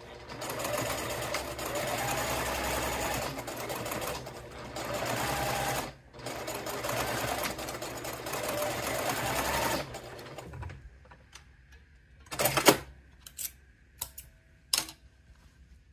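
Straight-stitch sewing machine running in spurts as it stitches a rolled hem, with short pauses. It stops about ten seconds in. A few sharp snips of scissors cutting the threads follow near the end.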